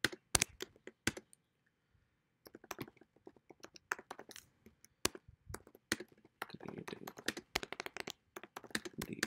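Typing on a computer keyboard: quick runs of key clicks with a pause of about a second near the start, growing denser and faster in the second half.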